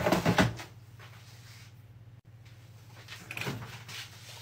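Handling of a red-lidded plastic flour tub: a quick cluster of knocks and clatter in the first half-second as it is moved off the worktop, then soft handling noise about three seconds in, over a steady low hum.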